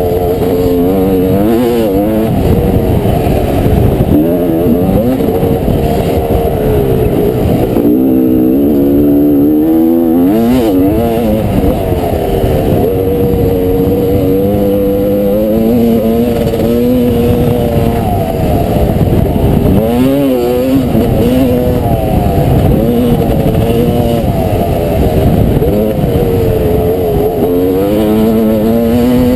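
1989 Honda CR250R's 250 cc two-stroke single-cylinder engine running hard on a motocross track, its pitch rising and falling again and again as the rider opens and closes the throttle and shifts gears. It is loud and muffled, heard through the rider's helmet-mounted camera.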